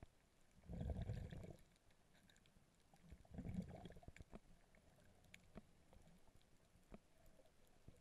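Muffled underwater sound: two brief surges of water noise, about a second in and again at about three and a half seconds, over faint scattered clicks.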